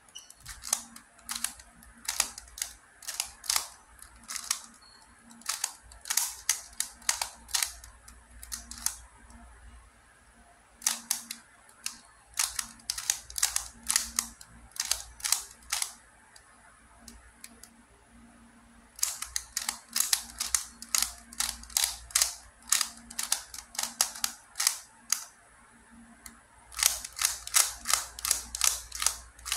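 Plastic clicking and clacking of a QiYi & MoFangGe Master Pyraminx as its layers are turned quickly by hand. The turns come in rapid runs, broken by a few pauses of a second or two.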